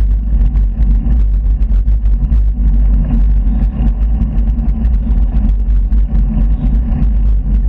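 Wind buffeting a handlebar-mounted camera's microphone on a moving bicycle: a loud, steady low rumble with rattly ticks from the road surface.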